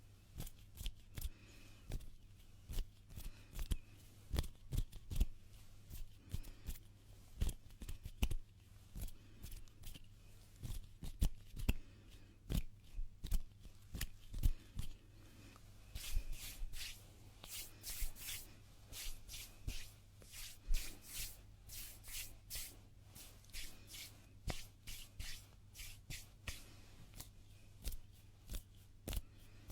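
Close-miked ASMR hand sounds: hands rubbing and brushing together in quick, irregular strokes, busiest in the middle.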